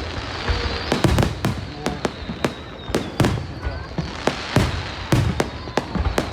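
Fireworks display: aerial shells bursting in a rapid, irregular string of sharp bangs, several a second, over a continuous crackle.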